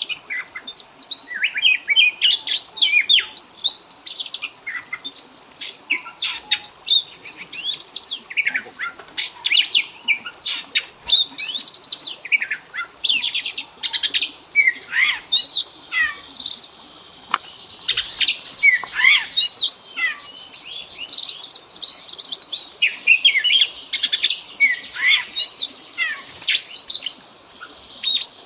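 Oriental magpie-robin (kacer) singing a fast, unbroken run of varied whistles, chirps and trills. The song is packed with mimicked phrases ('full isian') of the kind used as a pancingan to set other kacer singing.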